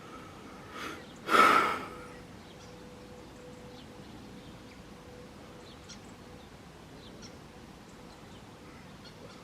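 A faint, steady, unexplained tone runs throughout, the strange sound being recorded. About a second and a half in, a bird gives one loud, harsh call lasting about half a second. A few faint chirps follow.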